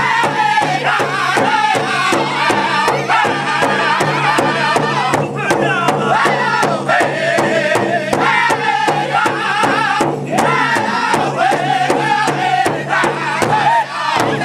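Powwow drum group singing high and hard in unison over one large powwow drum, struck together by several sticks in a steady fast beat of about three strokes a second.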